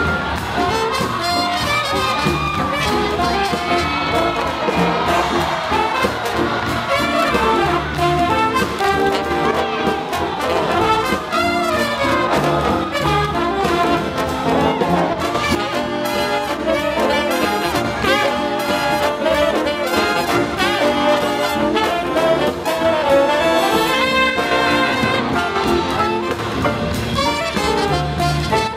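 Big band playing swing jazz: trumpets, trombones and saxophones over a steady beat.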